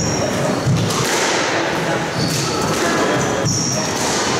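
Squash rally: the ball is struck by rackets and smacks against the court walls with several sharp thuds, among short high squeaks, all echoing in a large hall.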